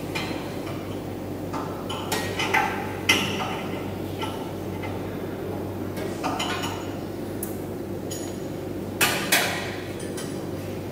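Scattered sharp metallic clanks and clinks, a loud one about three seconds in and a quick pair near the end, over a steady low hum.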